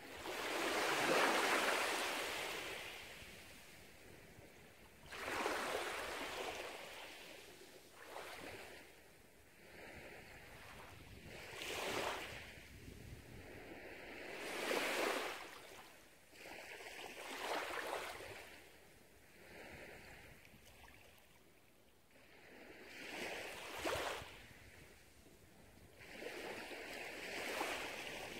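Small waves washing up onto a sandy beach, one after another about every two to three seconds, the loudest about a second in.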